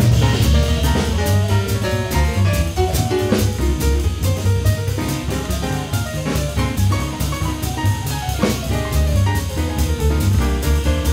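Instrumental background music: a drum kit keeping a steady beat under a melody.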